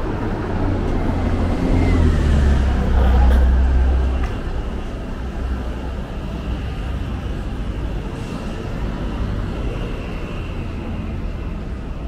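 Motor traffic on a city street. A vehicle passes close, its low rumble swelling and fading about two to four seconds in with a faint falling whine, then steady traffic noise carries on.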